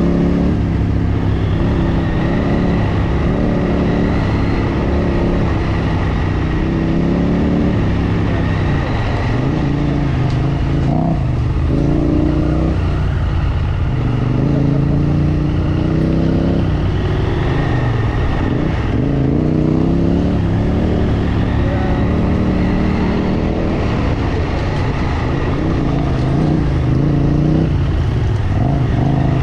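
Motorcycle engine running under way, its revs rising and falling repeatedly over a steady low rumble.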